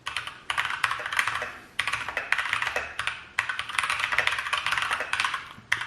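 Fast typing on a Keychron K2 mechanical keyboard: dense runs of key clicks in three spurts, with brief pauses between them.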